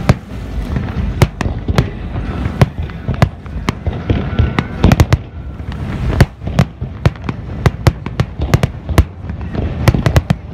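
Fireworks display: aerial shells bursting in a rapid, uneven string of sharp bangs, about three a second, bunched most thickly about five seconds in and near the end, over a continuous low rumble.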